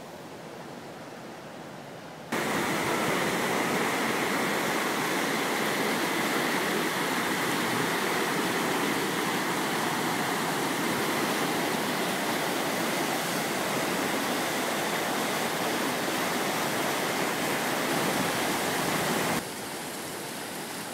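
Floodwater of the swollen Big Thompson River rushing, loud and steady. It starts abruptly about two seconds in, after a quieter steady hiss, and cuts off abruptly near the end to a softer rush of water.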